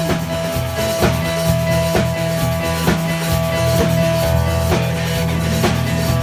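Live band music, poorly recorded: a drum kit keeps a steady beat of about one hit a second under held bass and guitar notes, with no singing.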